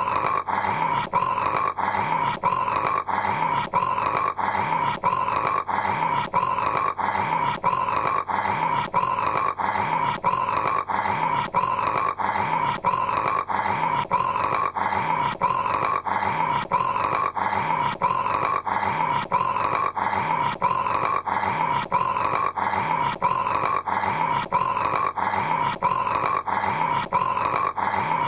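A man snoring in a rasping, growl-like rhythm that repeats evenly and quickly with no pauses, like a short snore recording looped over and over.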